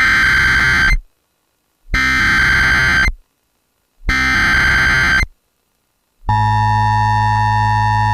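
Emergency Alert System SAME header: three bursts of shrill electronic data tones, each about a second long with about a second of silence between them, then a steady electronic attention tone starting about six seconds in. Together they signal the start of a new severe thunderstorm warning.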